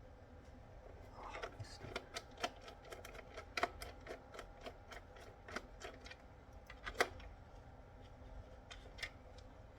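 Irregular light clicks and taps of a screwdriver working at the screws of a plastic radio-control handset case, with the loudest taps about three and a half seconds in and again near seven seconds.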